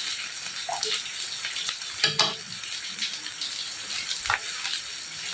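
Food sizzling steadily in a frying pan, with a sharp clink of a utensil against the pan about two seconds in and a lighter one near the end.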